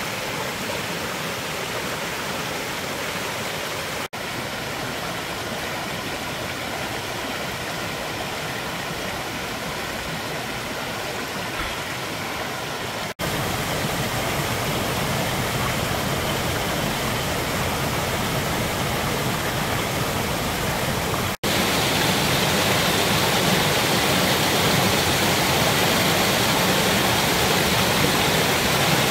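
Mountain stream running full after rain, water rushing and splashing over rocks in small cascades: a steady rush. The sound breaks off briefly three times, and it is louder after the second and third breaks, where the cascade is heard close up.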